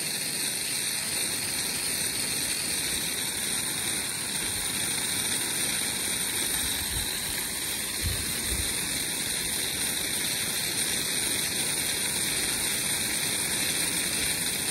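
Steady hiss of a fine water spray falling on a stacked vertical planter tower and raised garden beds.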